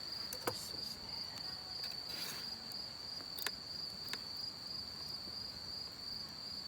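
Insects trilling in a steady, unbroken high-pitched chorus, with a few sharp clicks and a brief rustle over it.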